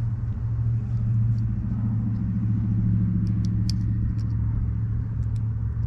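Steady low motor hum, even in pitch, with a few faint light clicks of a small plastic toy being handled.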